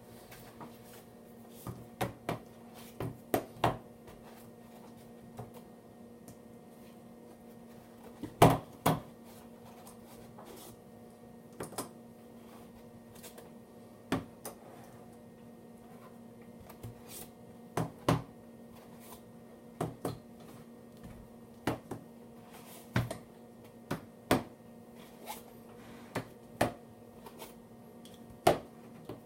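Pocket knives being taken out of a Pelican case's foam slots one after another and set down on a hard surface: a string of light clicks and knocks, roughly one every second or so, the loudest about eight and a half seconds in, over a faint steady hum.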